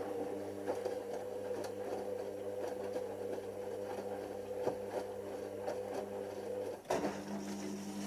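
Hoover Nextra washing machine turning its drum on the prewash, with the bedding tumbling in the water and occasional thuds. About seven seconds in there is a click, the drum motor stops and the drain pump starts with a steady hum: the prewash is ending and the machine begins to drain.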